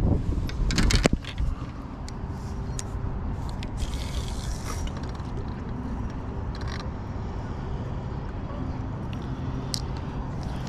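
Boat motor running steadily at low speed, a low hum with faint steady tones. In the first second or two there is wind on the microphone and a few sharp knocks or scrapes.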